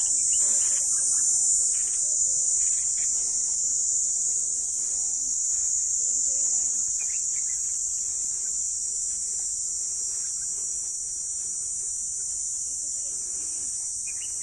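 Insects singing in one steady, unbroken high-pitched buzz.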